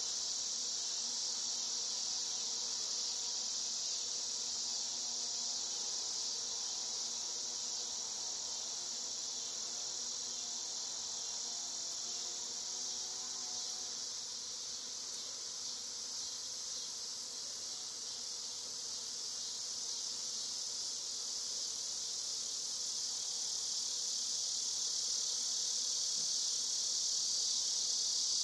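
A swarm of honeybees buzzing around the microphone, a wavering drone that fades out about halfway through. Under and around it runs a louder, steady high-pitched insect chorus that swells near the end.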